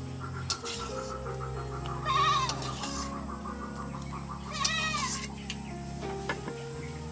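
Background music with held notes, over which an animal bleats twice in quavering calls, about two seconds in and again near five seconds. A few short clicks of a metal spatula against a steel container.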